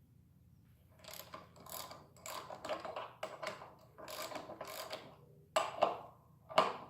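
Hand ratchet clicking in short runs as it turns a 14 mm socket, working the motorcycle's front brake caliper mounting bolts loose, with a few sharp metal knocks near the end.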